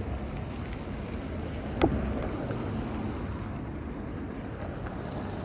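Wind buffeting the microphone while riding in the rain, a steady rushing noise, with one sharp knock a little under two seconds in.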